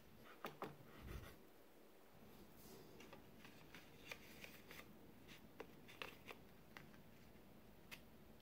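Faint scattered clicks and crinkles of thin aluminium foil loaf pans being handled, pressed and set down on a baking tray.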